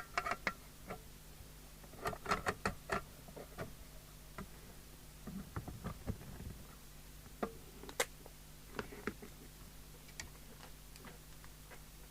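Irregular light clicks and taps of small radio parts, screws and tools being handled on a workbench. There is a quick run of clicks about two seconds in, a brief scraping around six seconds and a sharper click near eight seconds, over a faint steady hum.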